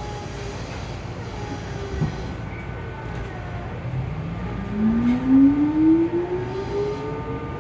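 Tobu 9000 series chopper-controlled electric train, car 9204, heard from aboard: steady running rumble with one knock about two seconds in, then a loud whine from the drive that rises steadily in pitch from about halfway as the train gathers speed. The rider took this car's sound to be abnormal.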